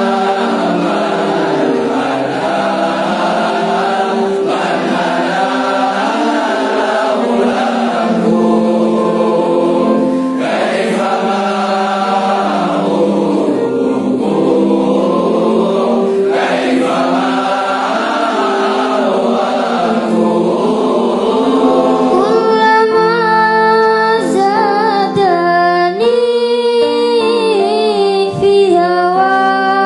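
A group of voices sings an Arabic devotional song together in chorus, on long held notes. About two-thirds of the way through, a single voice takes over with a melody that bends and ornaments.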